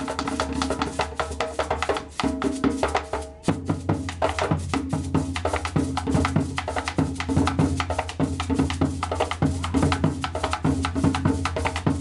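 Background music with a quick, steady percussion beat over a low bass line; the pattern changes about three and a half seconds in.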